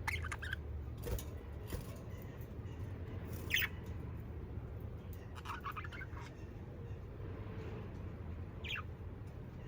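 Budgerigars calling with scattered short chirps, several sweeping quickly down in pitch, and a quick run of chirps about halfway through, over a low steady hum.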